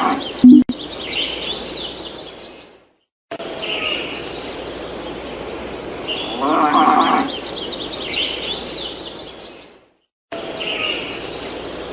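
Background farmyard ambience: birds chirping repeatedly over a steady noise bed, with a farm animal calling about six and a half seconds in. The track cuts out to silence twice, briefly.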